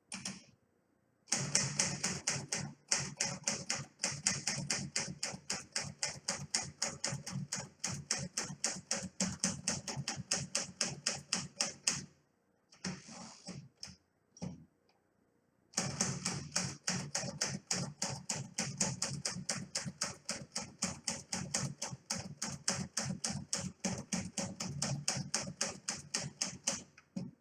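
Keys of a 1950 Smith Corona Silent manual typewriter being struck in quick succession, several keystrokes a second, as it types on freshly loaded paper. The typing breaks off for a few seconds near the middle, with a brief rattle and a click, then resumes.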